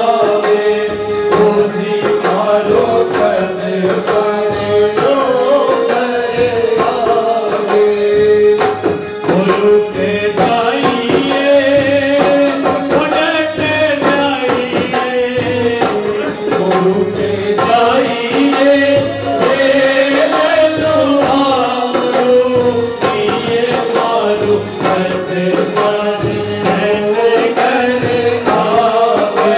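Rajasthani Phagan folk song: singing with bending, held sung lines over a steady, evenly repeating frame-drum rhythm.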